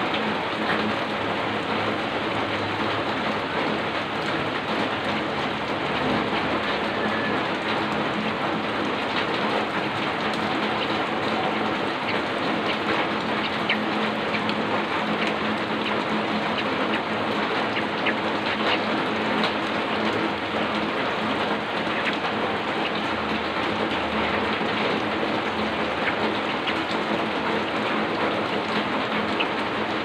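Heavy rain falling steadily, a dense even hiss with many scattered sharp drop impacts.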